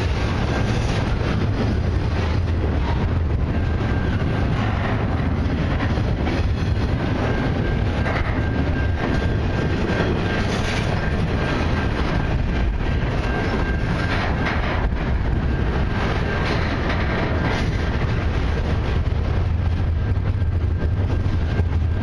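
Double-stack intermodal freight cars rolling past: a steady, loud rumble of steel wheels on the rails with scattered knocks. A faint thin steady whine runs through the middle.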